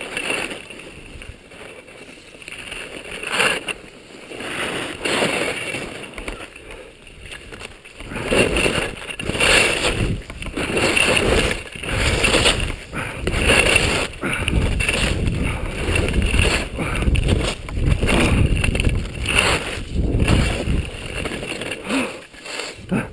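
Skis carving and scraping over packed snow through a series of turns, with wind rushing over the helmet-mounted camera's microphone; the sound swells and fades with each turn, gets heavier about a third of the way in as speed builds, and dies away near the end as the skier stops.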